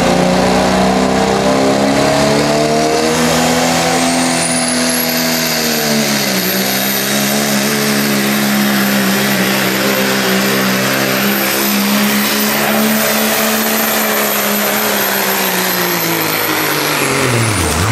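Diesel pickup truck engine held at high revs under heavy load while pulling a weight-transfer sled, its pitch dipping briefly about six seconds in. A high turbo whistle climbs over the first few seconds, holds, and falls away as the engine comes off near the end.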